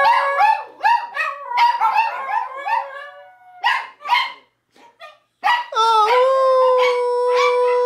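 Small dogs howling and yipping in a quick run of short, wavering calls. About six seconds in, one long, steady howl starts and is held.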